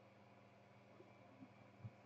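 Near silence: faint room tone with a steady low electrical hum, and one soft low thump near the end.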